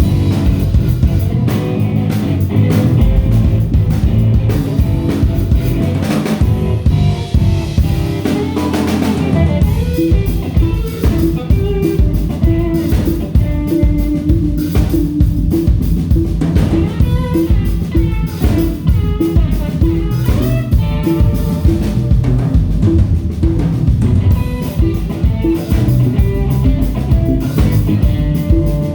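Band music: guitar playing over bass and a drum kit with a steady beat, the drums and bass filling out about ten seconds in.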